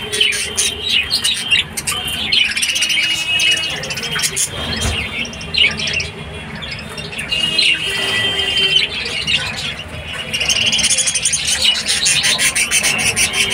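Budgerigars chattering and warbling: a steady stream of rapid chirps and buzzy notes, busiest near the end.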